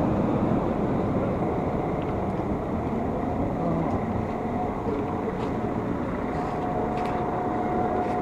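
Scania Citywide LF articulated city bus running steadily at a stop with its doors open, heard from its doorway and then from the pavement beside it. A steady high tone joins about six seconds in.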